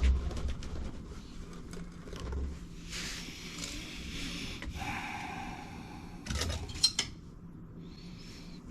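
Irregular rubbing and scraping handling noises with a few sharp clicks and knocks, as pipe and tools are handled and the pipe is measured for cutting.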